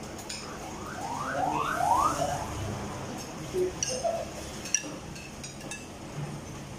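A quick series of about five rising whoops, each climbing in pitch over about a third of a second. After them come scattered light clinks of spoons and forks against plates.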